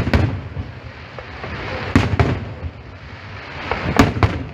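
Aerial firework shells bursting: three sharp double bangs about two seconds apart, each followed by a short echo, over a steady background of firework noise.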